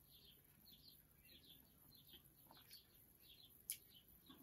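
Near silence with faint, quick bird chirps repeating in the background, and a single sharp click late on.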